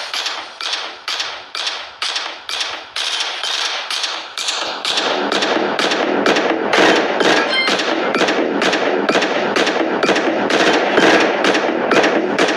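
Background music with a steady percussive beat, about two and a half knocks a second, getting fuller about halfway through.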